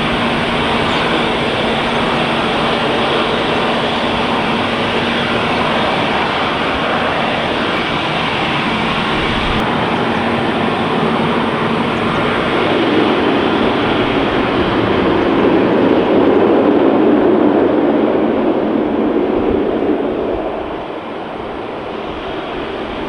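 Airbus A320's jet engines roaring steadily. The roar swells in the middle and falls away about twenty seconds in as the aircraft passes.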